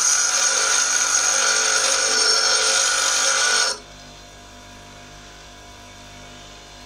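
Parting tool being ground on a bench grinder wheel: a steady hissing grind that stops suddenly about three and a half seconds in, as the tool is lifted off, leaving the grinder motor running free with a low hum.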